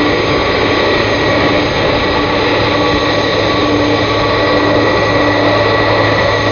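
Jet engines of a Boeing 747 Dreamlifter freighter (four Pratt & Whitney PW4062 turbofans) running loud and steady as the aircraft rolls close past, with a steady high-pitched whistle over the rush.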